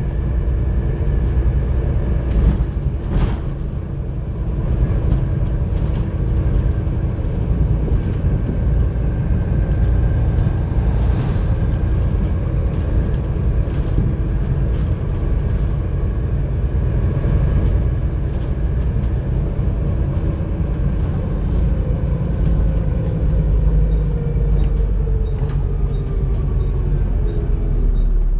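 Volvo B7TL double-decker bus under way, heard from the upper deck: a steady low rumble of the six-cylinder diesel and drivetrain with whining tones over it. A sharp knock about three seconds in, and near the end the whine falls in pitch as the bus slows.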